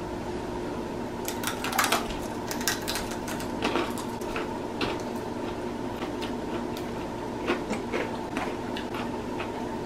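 Crunching and chewing of Takis rolled tortilla chips pressed into cheese-filled jalapeño halves: irregular crackly crunches from about a second in, over a faint steady hum.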